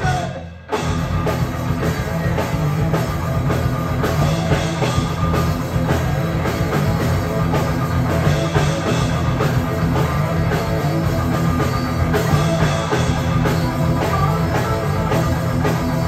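Live rock band playing hard rock on drum kit and distorted electric guitars, the music dropping out briefly at the start and coming back in full just under a second in.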